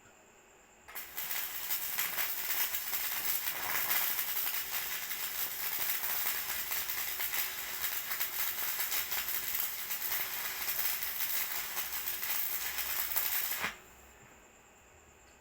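Electric welding arc crackling steadily as a bead is laid on the teeth of a corn sheller. It starts about a second in and cuts off sharply near the end when the arc is broken.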